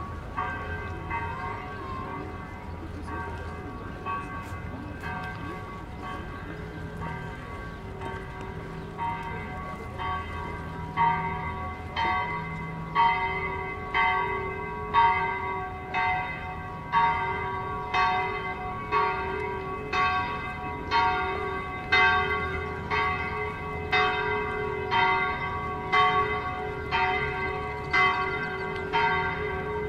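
A bell tolling with an even stroke about once a second, each strike ringing on; the strokes are faint at first and much louder from about eleven seconds in.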